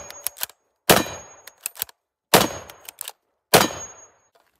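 Q FIX bolt-action rifle firing at steel targets: three shots about a second and a half apart, each followed by sharp clicks as the bolt is worked and a faint ring from the steel.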